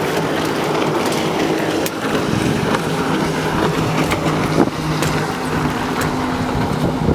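Jet ski engine running at speed: a steady engine drone over a rushing noise with scattered sharp clicks. The level drops briefly about two seconds in, and the engine note shifts and settles.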